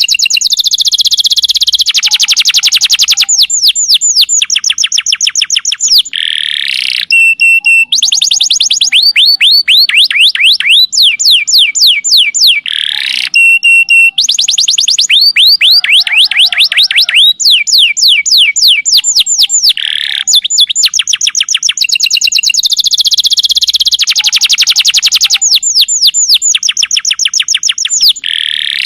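Domestic canary singing a long unbroken song of rapid trills, loud and high-pitched: fast runs of falling chirps, broken by buzzy rolls and short steady whistles. The same sequence of phrases comes round again about every seven seconds.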